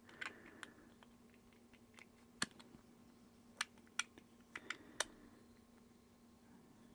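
Faint, irregular small clicks and taps as a G-Shock watch's back cover is fitted onto the case, about eight in all, the sharpest about two and a half and five seconds in.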